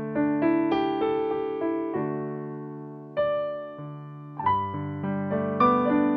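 Solo piano improvisation of slow struck notes and chords that ring and fade. It thins to a held chord near the middle, then picks up with fuller chords and bass notes from about four and a half seconds in.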